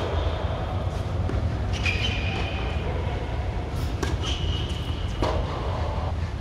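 Tennis balls struck by rackets on an indoor hard court: a serve hit about four seconds in and returned about a second later, with short high squeaks of court shoes. A steady low rumble lies underneath.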